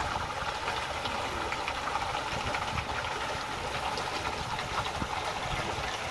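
Pontoon boat under way: its motor running steadily, with water rushing past the hull.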